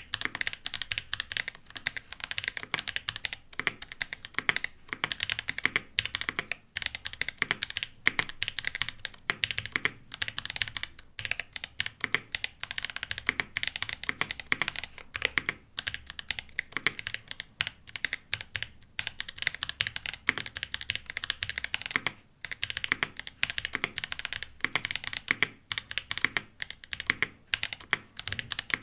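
Fast continuous typing on a 65% mechanical keyboard with an aluminium plate and Boba U4T tactile switches, lubed with Krytox 205g0 and filmed. The keystrokes come as a dense run of clicks with short pauses now and then.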